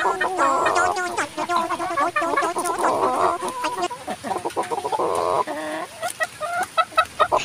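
A chicken clucking continuously: a run of short clucks broken by a few longer, drawn-out calls.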